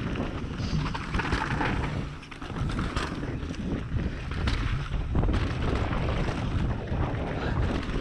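Mountain bike descending a dirt singletrack at speed: wind buffeting the GoPro's microphone, tyre noise on the dirt, and frequent knocks and rattles from the bike over bumps, with a brief lull about two seconds in.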